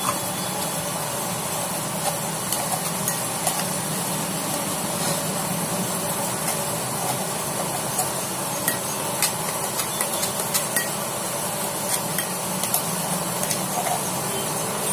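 Metal spoon scraping and tapping inside a stainless-steel mixer-grinder jar, knocking ground chana dal batter out into a bowl, in many short clicks over a steady background hiss.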